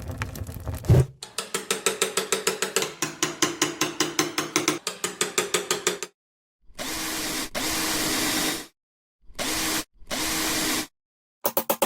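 A sharp knock, then a rapid even series of mechanical clicks, about four to five a second, like a ratchet or tool mechanism working. After that, a small power tool runs steadily in two short spells, each cut off abruptly into silence.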